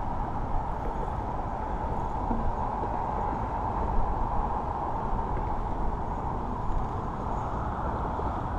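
Steady, muffled outdoor background noise with no distinct events.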